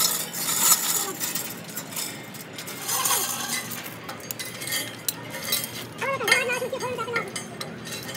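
Light metal clinks and knocks, as of steel tools and parts being handled, with voices talking in the background about six seconds in.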